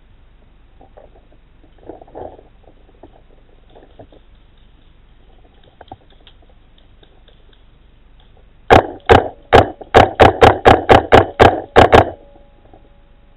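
Paintball marker firing a rapid string of about a dozen sharp shots over some three seconds, the shots coming faster toward the end.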